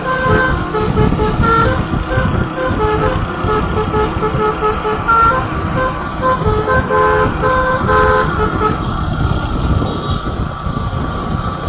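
Basuri 'telolet' musical horn on a bus playing a tune of quick tooting notes, which stops about nine seconds in. A low rumble of engine and traffic noise runs underneath.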